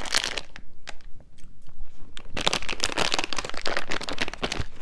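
Small plastic snack bag crinkling as it is opened and handled, mixed with crunching as a crunchy snack is bitten and chewed.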